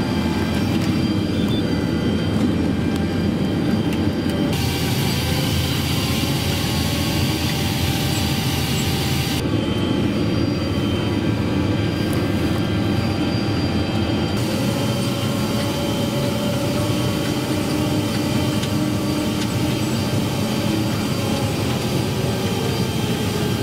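Fendt 720 Vario tractor's six-cylinder diesel running steadily under load while pulling a seed drill through the field, with a hiss that comes and goes in stretches of about five seconds.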